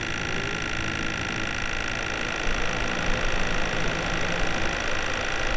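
High-pressure 1,500 PSI misting pump running steadily with a whine of several steady tones, and a misting nozzle hissing as it sprays fine mist.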